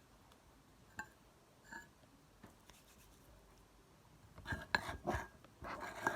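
A spoon scraping and clicking against the container while the shampoo slime mixture is stirred: a single click about a second in, then a run of scratchy knocks in the last two seconds.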